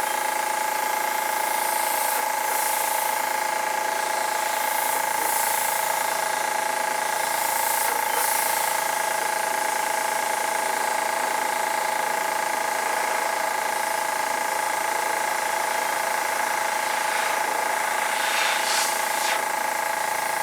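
Steady whine and hiss of a handheld heat tool, such as a propane torch or heat gun, blowing over wet acrylic paint to raise cells. It runs evenly throughout, with a few faint soft rustles over the hiss.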